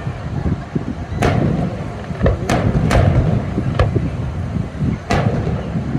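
Aerial fireworks shells bursting: four loud bangs and a weaker one, a second or so apart, over a steady low rumble of wind on the microphone.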